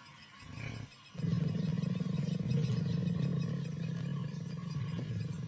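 Lioness growling: a low, steady rumble that sets in about a second in and carries on.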